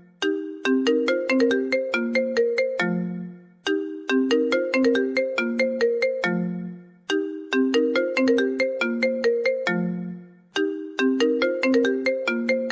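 Instrumental melodic ringtone: a short phrase of quick notes that start sharply and die away, ending on a low fading note, looping about every three and a half seconds.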